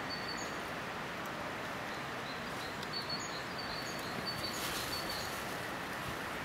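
Steady rushing outdoor background noise with a small bird's short, high, thin calls repeating several times over it.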